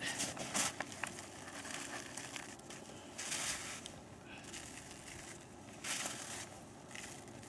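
Snow being packed into a soft plastic water bottle by gloved hands: crunching snow and crinkling plastic in a few short bursts.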